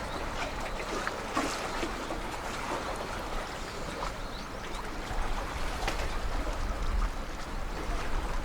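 Open-air waterside ambience: wind rumbling on the microphone over water lapping and trickling, with scattered small knocks and splashes.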